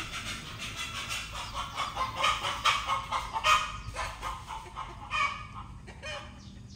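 Chickens clucking in a string of short, irregular calls, thickest around the middle.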